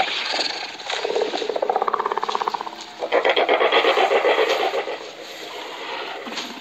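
Sound-designed Therizinosaurus vocalization: two long, fast-pulsing, rattling growls, the second starting about three seconds in and louder.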